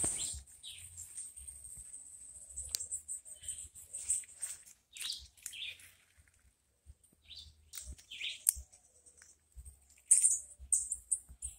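Birds chirping: short calls repeat every second or so over a steady high-pitched tone, with a few sharp clicks.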